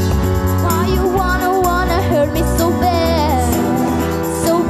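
Live pop band playing: a young female singer's voice carries a wavering melody, entering about a second in, over keyboard, electric guitars, bass and drum kit.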